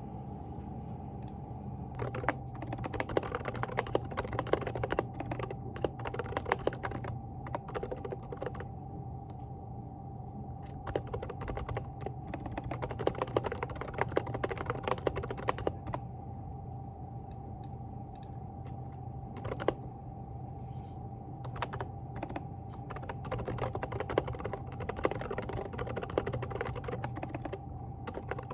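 Mechanical keyboard with hand-lubricated silent switches being typed on in bursts of fast keystrokes, with short pauses between runs, over a steady background hum.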